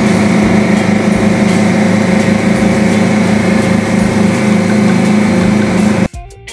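Fishing boat's engine running steadily under way, a loud even drone with a low hum, over wind and water noise. It cuts off abruptly about six seconds in, and music begins.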